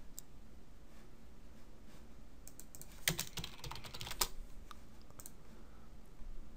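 Computer keyboard typing: a quick run of keystrokes about two and a half to four and a half seconds in, with a few single clicks before and after.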